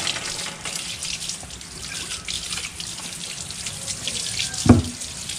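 Water from a garden hose running and splashing over a motorcycle drive chain and rear sprocket, rinsing off the diesel used to clean the chain. A single short thump sounds near the end.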